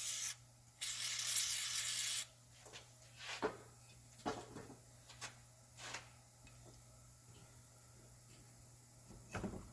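Aerosol lubricant spray can hissing: the end of one burst, then a second burst of about a second and a half, as lube is sprayed onto brake caliper slide pins. Several light metallic clicks and knocks of the parts being handled follow.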